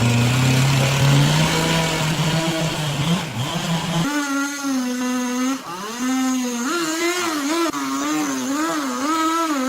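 A small engine running, its pitch slowly climbing at first. About four seconds in the sound changes abruptly to a thinner, higher pitch that keeps rising and falling.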